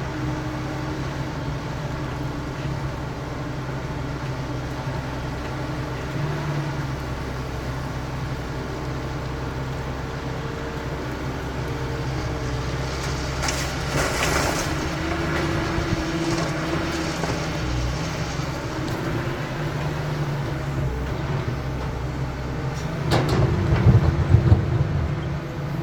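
CAT 320 hydraulic excavator's diesel engine running steadily under load. About halfway through there is a brief rush of noise, and near the end a louder rumble with clatter.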